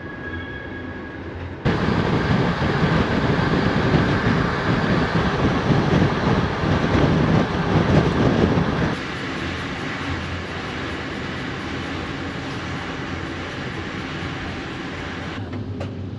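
Passenger train running on the rails: a steady rumble and rush of wheel and track noise. It starts suddenly about two seconds in, louder and rougher, then drops abruptly to a quieter steady run about nine seconds in.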